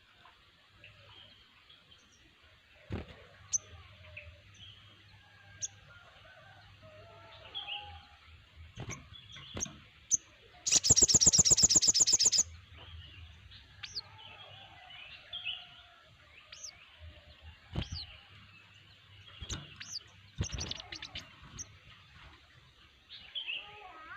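Several sogon songbirds calling together in a steady mix of short chirps and whistles. About eleven seconds in, one bird gives a loud, rapid trill lasting about two seconds, and a shorter quick run of notes comes near the end.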